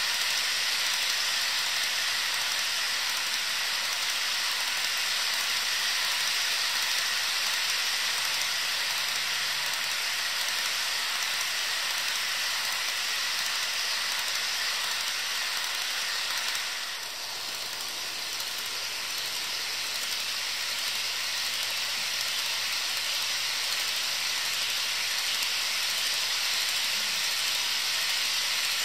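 HO scale covered hopper cars rolling along model track: a steady, even hiss of many small metal wheels on the rails, dipping briefly about two-thirds of the way through.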